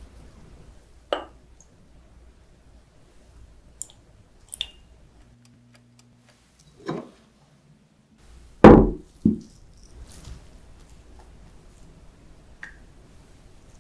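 Glass jugs and a plastic spoon being set down and tapped while soap ingredients are handled: a handful of separate knocks and clinks, the loudest two close together about nine seconds in.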